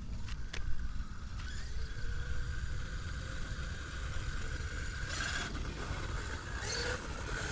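Traxxas Unlimited Desert Racer RC truck's brushless electric motor whining at a steady high pitch that creeps slowly upward, over a low rumble, with two short hissing bursts near the end.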